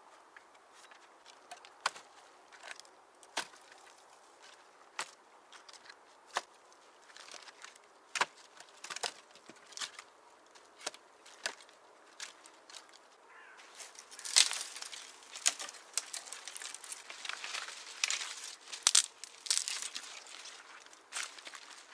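Hands-on work in a bush camp: sharp clicks and knocks about once every second or so, then, about two-thirds of the way in, denser bouts of rustling and scraping with a few louder knocks.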